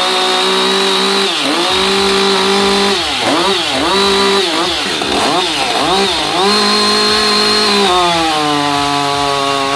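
Chainsaw running at high revs, its pitch dipping and recovering several times in the middle, then settling at a steady, slightly lower pitch near the end.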